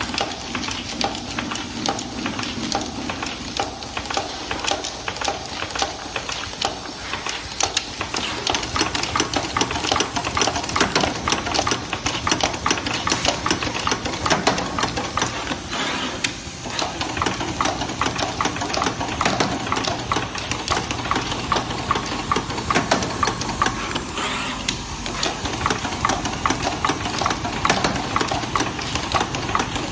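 Automatic 18650 lithium cell spot welding machine running its welding cycle: rapid, continuous mechanical clicking and ticking over a steady low motor hum.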